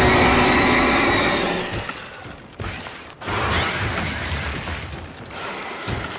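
Kaiju roar sound effects: a long, harsh roar with a steady pitched tone that fades over about two and a half seconds, a brief burst, then a second roar of about three seconds that also fades.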